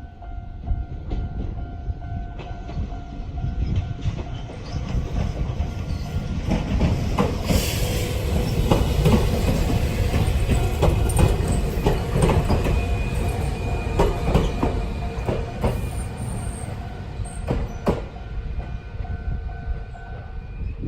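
A Jōmō Electric Railway train passes over a level crossing, its wheels clattering over the rail joints, loudest in the middle. The crossing's old-style warning bell rings a steady two-note tone before the train arrives and again as it clears.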